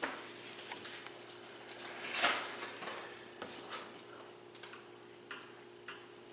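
Paper rustling and crinkling as a greeting-card envelope is opened and the card drawn out, with the loudest rustle about two seconds in and lighter ones after.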